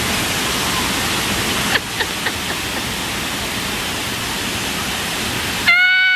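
Waterfall pouring with a steady, even rush and a few faint ticks. Near the end the rush cuts off suddenly and a short, held high note begins.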